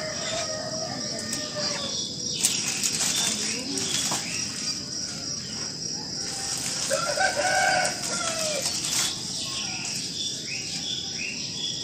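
Crickets trilling steadily in a pre-dawn chorus, with a rooster crowing once about seven seconds in and small birds chirping near the end.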